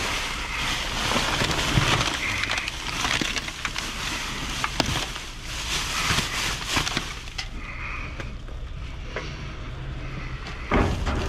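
Plastic bags and food packaging rustling and crinkling as they are handled and pulled out, with scattered small knocks, over a steady low hum.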